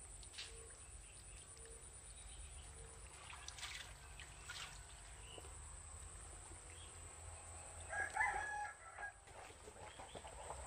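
A rooster crowing once, about eight seconds in, with fainter short calls earlier.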